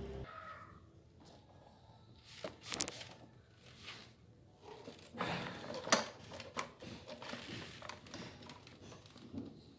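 Handling noise as the engine unit of a Honda UMR435T backpack brush cutter is set onto its backpack frame and fitted: scattered knocks and clicks of plastic and metal parts. The sharpest click comes about six seconds in.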